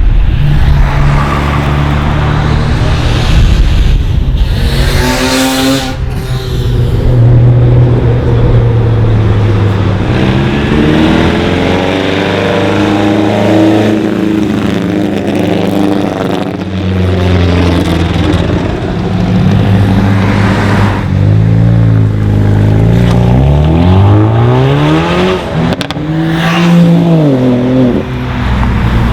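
Several modified cars driving past one after another at speed, their engines revving up and dropping in pitch as they accelerate, lift off and go by.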